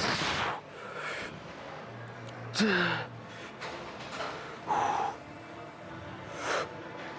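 A man breathing hard: several sharp, noisy exhales a second or two apart, one of them about two and a half seconds in carrying a short falling groan.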